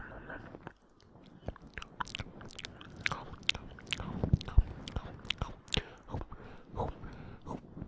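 Close-miked ASMR ear-eating mouth sounds: wet, irregular nibbling and chewing smacks and clicks, many in quick succession from about a second in.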